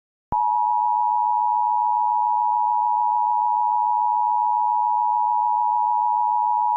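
Emergency Alert System attention signal: a steady two-note tone near 1 kHz (853 and 960 Hz sounded together), starting a moment in after a brief silence.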